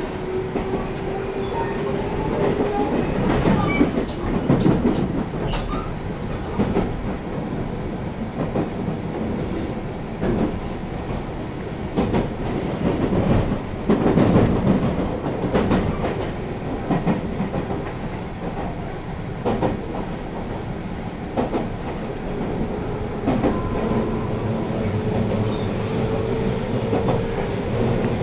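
JR West 221 series electric train running, heard from inside the passenger car: a steady rumble with wheels clattering over rail joints and points. A motor whine rises in pitch as the train gathers speed, once at the start and again near the end.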